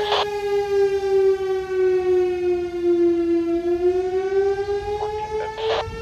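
Fire engine siren wailing, its pitch falling slowly and then rising again past the middle. Two short, sharp blasts cut in, one at the start and one near the end.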